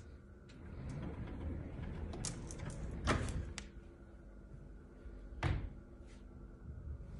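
Interior door being handled: a rattle of clicks and knocks about three seconds in, then a single knock about five and a half seconds in.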